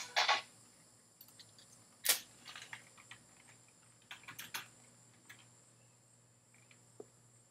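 Background music cuts off just after the start. Then a quiet room with scattered small clicks and taps of handling: one sharper click about two seconds in, a few light taps after it, and a single click near the end.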